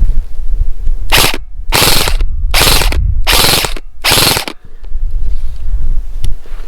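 KWA VM4 Ronin 10 SBR airsoft electric gun firing on full auto: five short bursts of rapid mechanical clatter in quick succession, the first the shortest.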